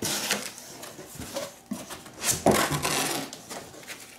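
Cardboard shipping box being opened by hand: flaps scraping and flexing, with rustling as the packed contents are handled. The loudest scrape comes a little over two seconds in.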